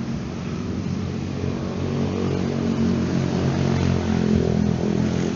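A small engine running steadily at a constant pitch.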